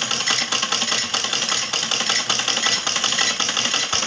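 Orient sewing machine running, its needle mechanism stitching with a fast, even clatter.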